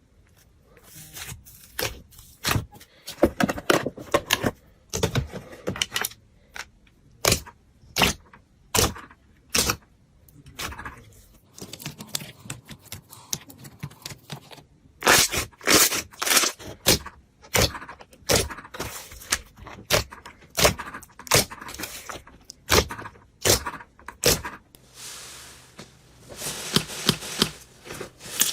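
Slime being squeezed and poked by hand, giving an irregular run of sharp crackles and snaps, with a softer rustling stretch near the end.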